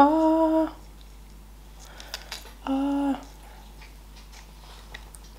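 A woman's voice making two drawn-out, level-pitched hesitation sounds, like a thoughtful 'mmm', about three seconds apart. Faint crumbly crackles follow as a chocolate-topped pastry is pulled apart by hand.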